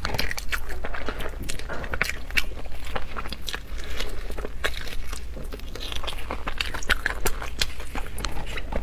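Close-miked mukbang eating: irregular wet bites, crunches and chewing of saucy food, with many sharp little clicks and crackles throughout.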